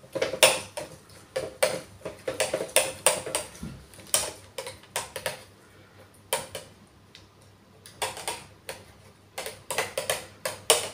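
A metal teaspoon clinking and scraping inside a small metal cutter ring as it presses sticky almond mixture flat: irregular light clicks and taps, with a short lull a little past the middle.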